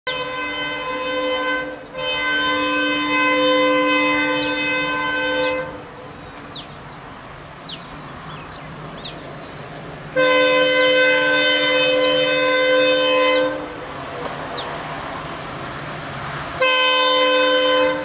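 Air horn of a WDP-4D diesel locomotive sounding a chord of several tones in repeated blasts: a long blast broken briefly about two seconds in, a second long blast about ten seconds in, and a short one near the end. Between blasts the approaching train runs with a lower, steady rumble.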